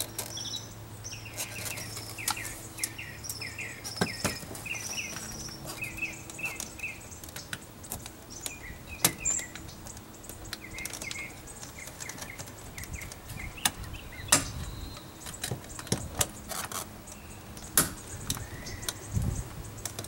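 Scattered light clicks and taps of a small flat-blade screwdriver and fingers working the plastic retaining clip off the locking rod behind a Toyota 4Runner's interior door handle. Repeated short chirping runs through the first half.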